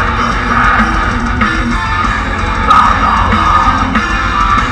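Metalcore band playing live at full volume: electric guitars over drums and bass, heard from the crowd through the PA.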